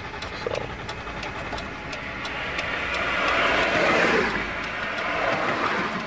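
Steady ticking of a Chrysler Town and Country minivan's hazard-light flasher, with a broad rushing sound that swells to its loudest about four seconds in and then fades.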